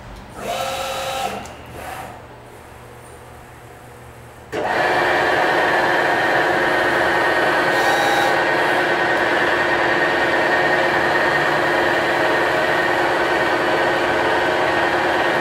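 Chevalier FM63R CNC milling machine running a test program, its table traversing on its axes. After a brief tone near the start, the machine sound comes in suddenly about four and a half seconds in and runs steadily as a whine of several steady tones. The ball screws sound excellent.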